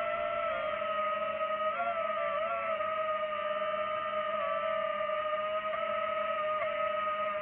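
DJI FPV drone's motors and propellers whining at a steady pitch, with a few brief dips and wobbles in pitch as the throttle shifts.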